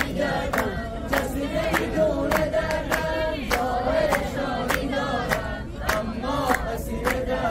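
A crowd singing together under a brick bridge arch, many voices holding a wavering melody, while a steady beat of sharp hand claps keeps time at a little under two a second.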